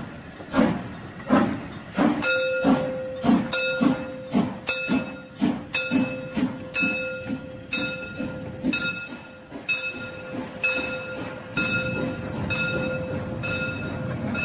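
Steam locomotive working steadily, its exhaust chuffing in an even beat of about three chuffs every two seconds. From about two seconds in, a steady high tone sounds over the chuffs.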